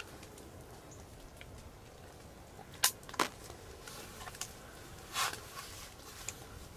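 Quiet evening outdoor ambience, a faint steady background, with a sharp click about three seconds in, a second click just after, and a brief rustle about two seconds later.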